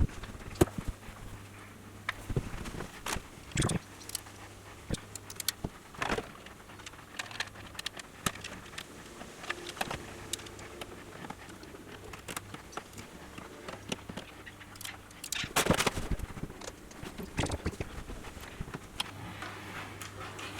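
Scattered clicks, taps and rattles of small metal screws and parts being handled while a power supply is screwed into a PC case, with a denser run of knocks about fifteen seconds in.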